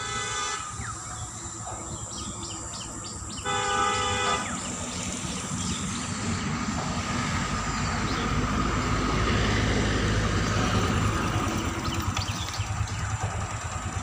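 A horn sounds twice: faintly at first, then louder for about a second some three and a half seconds in. A low outdoor rumble then swells through the middle and eases off near the end.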